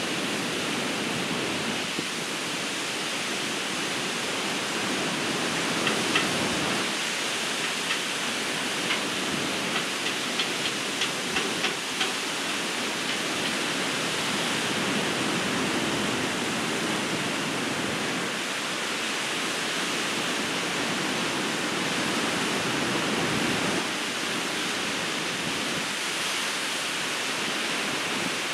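Ocean surf breaking on a beach: a steady rushing noise that swells and eases with the waves. A scatter of short clicks comes about a third of the way in.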